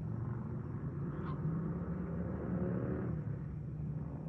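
A low, steady engine hum in the distance, swelling a little in the middle and easing off near the end.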